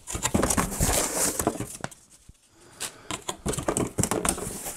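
Cardboard box and paper inserts being handled: rustling, scraping and light knocks. It comes in two bouts with a short lull in the middle.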